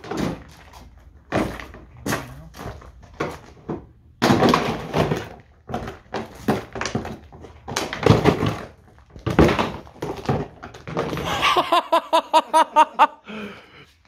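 Irregular clunks and knocks of hand tools and loose car body parts being worked on during bumper removal, several close together at times. Near the end comes a quick run of short pitched pulses, about five a second.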